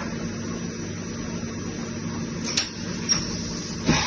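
TRENS MC 100 VA machining centre running with a steady hum, then three sharp mechanical clunks in the last second and a half, the last the loudest, as the machine goes through a changeover.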